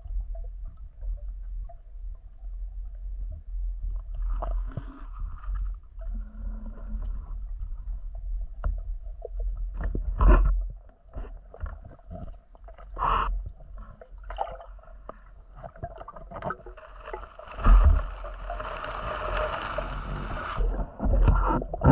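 Water sounds of a diver moving in the water: a steady low muffled rumble with scattered clicks, knocks and gurgles, and a louder rush of water near the end.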